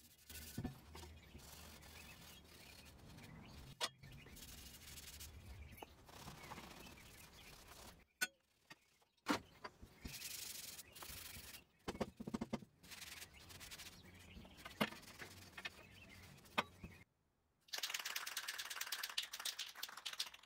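Steel bracket parts being wiped down with a cloth: cloth rubbing along the metal, with scattered clicks and knocks as the pieces are handled and set on the steel table.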